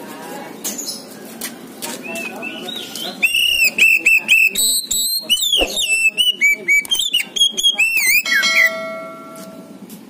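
Oriental magpie-robin (kacer poci) singing: a loud, fast, varied run of whistled and chattering notes, starting about three seconds in and stopping around eight seconds.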